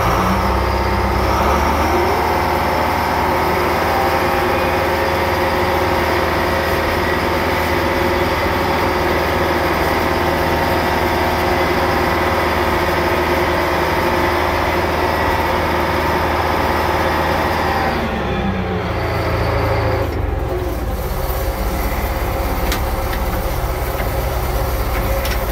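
1974 Champion road grader's old Detroit Diesel two-stroke engine running steadily as the grader drives, heard from the cab. About three-quarters of the way through, its note drops and stays lower.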